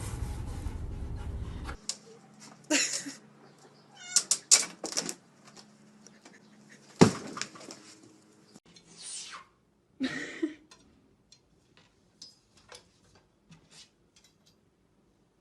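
A cat meowing several times, mixed with scattered clicks and knocks. A steady hiss runs for the first two seconds and cuts off, and a sharp thump about seven seconds in is the loudest sound.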